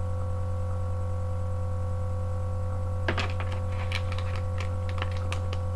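Steady low electrical hum throughout. From about three seconds in it is joined by a run of sharp clicks and crinkles as a plastic bag of stone fishing sinkers is handled.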